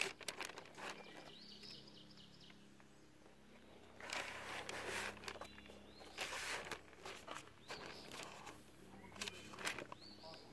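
Faint handling noise as cardboard cartridge boxes are moved and rustled by hand, with faint bird chirps in the background about a second in and again near the end.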